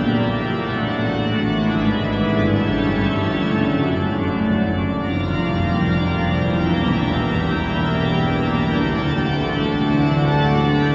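Church pipe organ, freshly tuned, playing sustained full chords over a bass line in a large stone church. A low bass note swells near the end.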